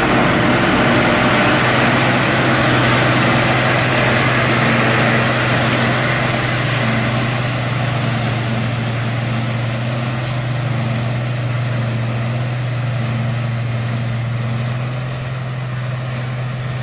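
New Idea 801 Uni-harvester power unit with its 868 forage chopper running steadily as it chops alfalfa, a loud, even drone. It grows slightly fainter and duller over the last several seconds as the machine moves away.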